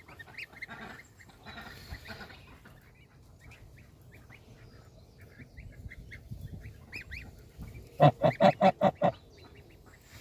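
Goslings peeping with many small, high, rising chirps, then about eight seconds in a goose honks in a quick run of six or seven loud calls.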